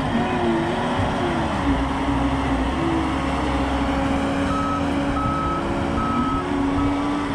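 John Deere compact track loader's diesel engine running and revving as it works dirt, its backup alarm starting to beep steadily about halfway through as it reverses.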